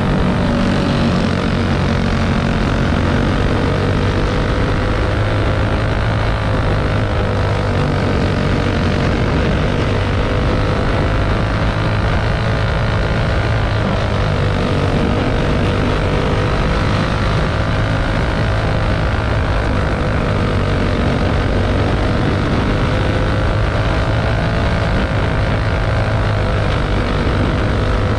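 Champ buggy's engine running hard at racing speed without a break, its pitch dipping and rising gently every several seconds as it goes through the turns.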